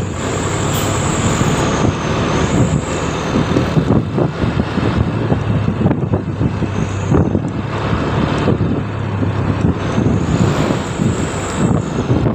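Bus engine running close by in a heavy, steady rumble. A thin high whine comes and goes twice, near the start and near the end.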